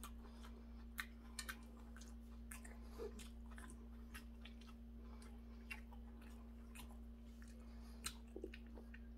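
A man chewing a mouthful of seonji gukbap (ox-blood soup with rice), quiet mouth sounds with a dozen or so short, scattered clicks, over a steady low hum.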